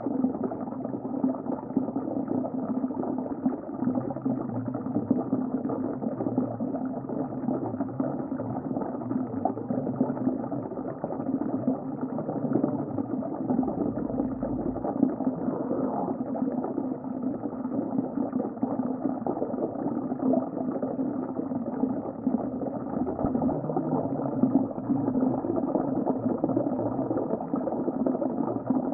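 Underwater ambience: a steady, muffled rush of water with a bubbling, boiling quality and no high sounds.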